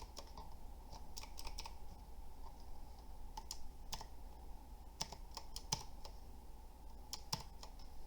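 Keys being pressed on a budget Pictek tenkeyless mechanical keyboard: a dozen or so irregular, unhurried keystrokes, several in quick pairs or short runs.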